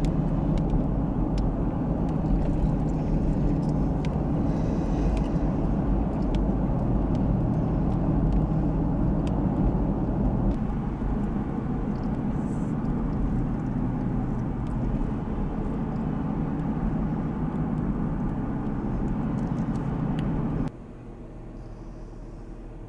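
Road noise inside a moving car: a steady low rumble of engine and tyres. Near the end it cuts off suddenly, leaving a much quieter steady background.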